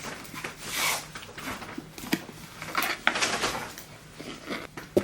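Rustling and light clicks as a sunglasses case and its packaging are handled and opened, with a sharp click near the end.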